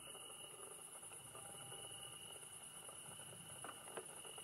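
Faint, steady high-pitched chirring of night insects, with a couple of soft clicks near the end.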